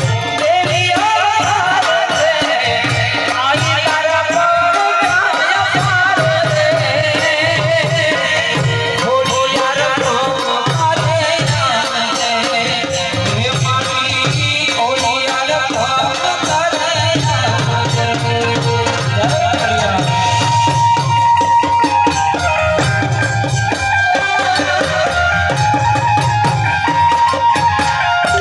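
Gujarati garba folk music: a wavering melody over a steady, even drum beat, with rattling percussion.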